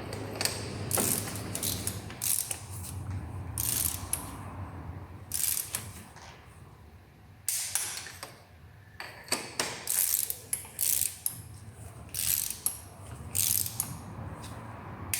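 Ratchet wrench clicking in short runs of quick clicks with pauses between, as spark plugs are screwed in and snugged down gently.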